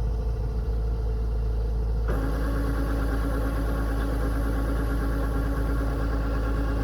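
Rice combine harvester's engine running steadily with a deep rumble. About two seconds in the sound changes abruptly, turning brighter with a steady higher hum on top.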